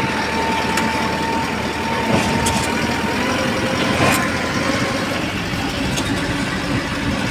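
Truck engine running under way, heard from inside the cab, with a steady whine that rises slightly in pitch. A few short knocks and rattles come through as the cab rides over the road.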